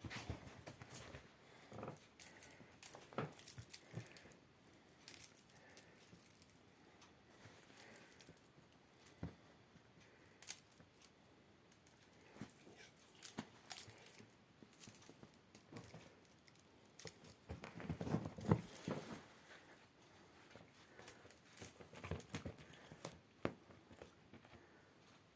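Dry grass spikelet rustling and crackling as cats bat and grab at it, with soft scratches and pats of paws on upholstery. The sounds come in faint irregular spells, busiest in a flurry about eighteen seconds in.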